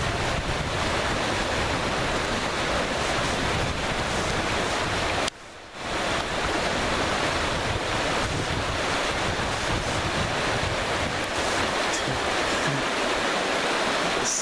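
Fast river current rushing over a riffle, with wind buffeting the microphone; the sound drops out briefly about five seconds in.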